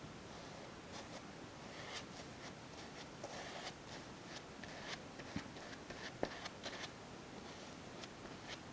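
Faint, irregular scratchy strokes of a brush working sealant into a woofer's cloth surround, with a few light ticks in the middle.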